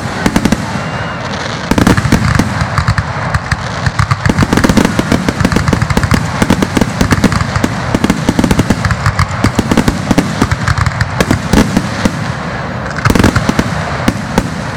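Aerial fireworks shells bursting in a rapid, near-continuous barrage of overlapping bangs, with brief lulls about a second in and near the end.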